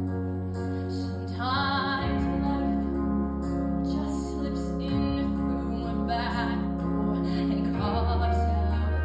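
A girl's solo voice singing a slow song into a microphone, holding long notes with vibrato, over an instrumental backing of sustained low chords.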